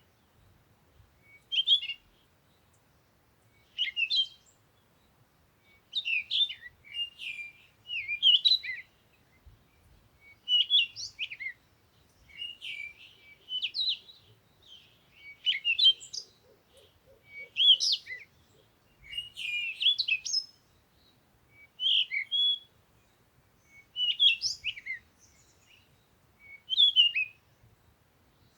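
A bird singing short, chirping phrases, each under a second long, repeated about every two seconds with quiet gaps between.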